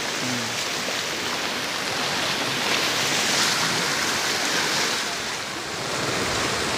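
Steady hiss of heavy rain falling on an umbrella and a wet road, with a rushing-water sound.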